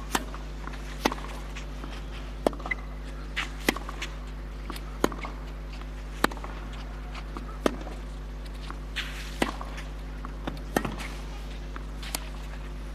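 Tennis ball struck back and forth by rackets in a baseline rally on clay: about ten sharp hits, one every second and a bit, with softer bounces between them, over a steady low hum.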